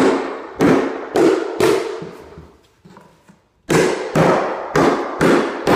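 Hammer blows driving the nails of a carpet tack strip into the subfloor: four strikes about half a second apart, a pause of about two seconds, then five more.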